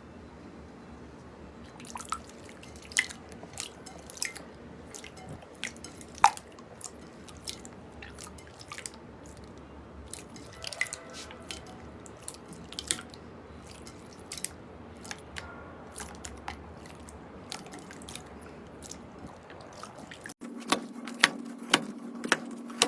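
Slime being squeezed and poked: irregular small wet pops and clicks, a few a second, some sharper than others. About 20 seconds in the sound changes abruptly, and a steady low hum runs under further pops.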